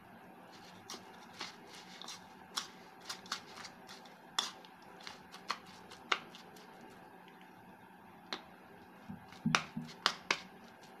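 A utensil mixing shredded cabbage in a ceramic plate: irregular clicks and scrapes against the plate over the rustle of the cabbage, with a quick run of louder clicks near the end.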